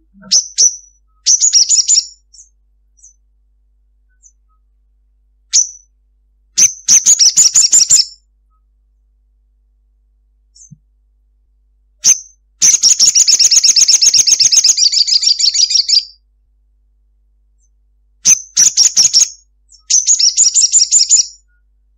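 Olive-backed sunbird calling: short sharp high notes, each followed by a rapid, high-pitched chattering trill. The trills come in five bursts of one to two seconds, with one long trill of about three and a half seconds in the middle.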